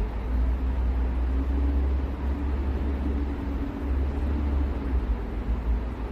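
Steady low rumble of a nearby vehicle engine, with a faint droning hum over it, growing louder right at the start amid city traffic noise.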